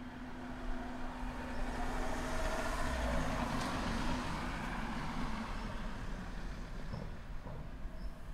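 A road vehicle passing by, its noise swelling to a peak about three seconds in and slowly fading, over a steady low rumble.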